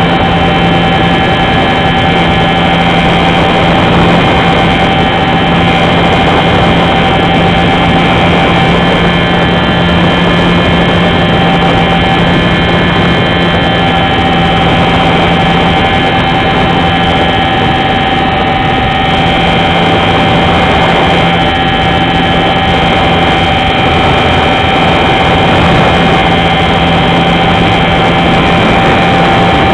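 R/C Super Cub model airplane's motor and propeller, heard from a camera mounted on the plane, running steadily in flight. A low hum carries a steady whine above it.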